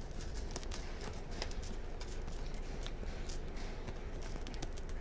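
Irregular light clicks and scratches from kittens' claws catching in cloth trousers as they climb a person's leg, over a steady low rumble.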